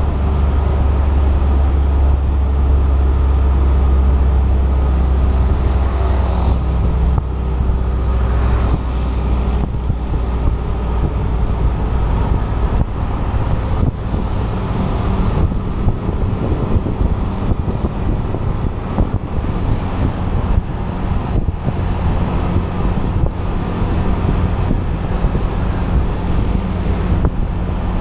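A 125cc Yamaha motorcycle engine running steadily while riding at road speed, with road and wind rumble on the camera's microphone and surrounding traffic. The deep rumble is heaviest for the first several seconds, then eases.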